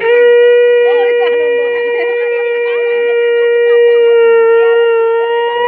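Conch shell (shankha) blown in one long, steady note that lifts slightly in pitch just before it cuts off near the end.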